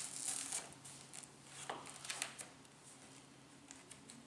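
Pages of a printed paper catalog being turned one after another: several short, soft paper rustles and flicks.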